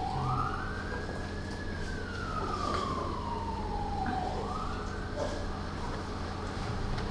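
Emergency vehicle siren wailing: one tone rising and falling slowly, about four seconds to each rise and fall, heard faintly over a low steady hum.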